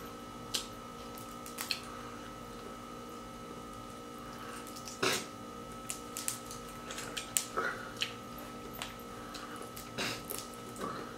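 Boiled blue crabs being cracked open and picked apart while eating: scattered sharp cracks and clicks of shell, heaviest about five seconds in and again between six and eight seconds, over a steady background hum.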